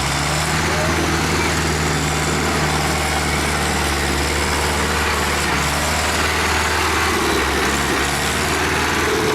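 A motor running steadily: an even low hum with a hiss over it.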